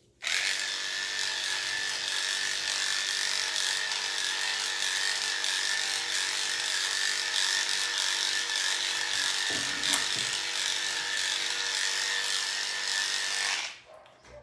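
Electric dog-grooming clippers running steadily as they blend the coat on a spaniel's back, a steady high-pitched motor hum. They switch on just after the start and off about a second before the end, with one brief click about ten seconds in.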